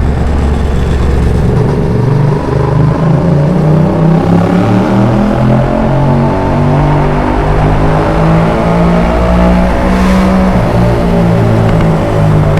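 Yamaha MT-07's 689 cc parallel-twin engine through an Arrow aftermarket exhaust, pulling under acceleration. Its note climbs and drops again and again as the revs rise and gears change.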